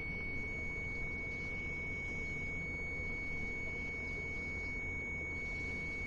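Digital clamp meter's continuity beeper giving one steady high tone without a break. The probes across the GPS kill-switch relay show continuity: the relay's circuit is closed.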